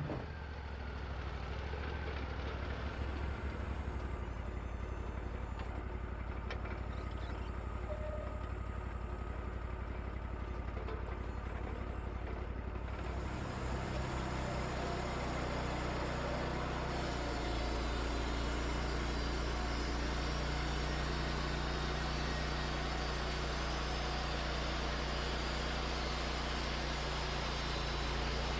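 Wood-Mizer LT40 portable sawmill running steadily, its engine driving the band saw. The sound changes about 13 seconds in and grows a little louder from about 17 seconds on.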